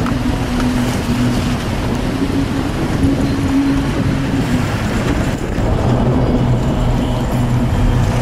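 A vehicle's engine running under load, with steady wind and road noise from the moving vehicle. The engine pitch shifts slightly a few times.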